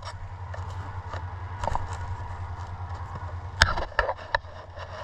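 A sharp click about three and a half seconds in, followed by two fainter clicks, over a steady low hum.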